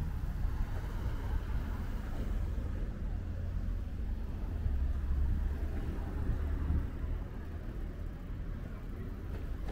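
Street ambience: a steady low rumble of road traffic with faint voices in the background.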